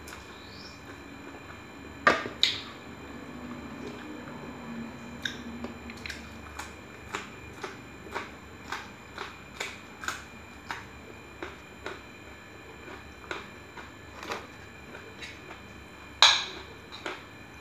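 Close-up eating sounds: chewing with sharp, evenly spaced mouth clicks about twice a second. There are two louder clicks about two seconds in, and a louder ringing clink near the end as a metal spoon hits a ceramic rice bowl.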